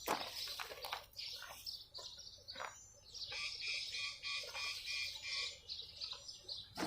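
A bird chirping, a quick run of short, evenly repeated high notes from about three seconds in, with a few light clicks and knocks before it.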